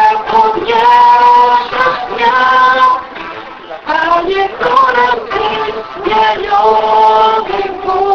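Men's and women's voices singing a slow song together, with long held notes in phrases and a short break about three seconds in.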